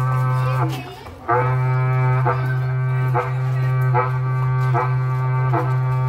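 Berrante, a Brazilian cattle-calling horn, blown in a low held note. It breaks off briefly about a second in for a breath, then resumes with a rhythmic repique of short downward pitch flicks about every 0.8 seconds.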